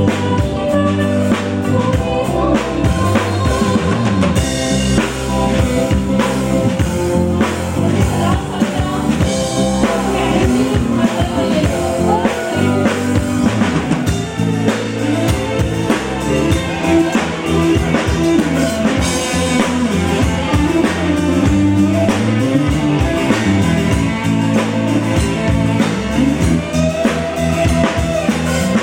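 Live band music with a drum kit keeping a steady beat of bass drum and rimshots under a melody, with some singing.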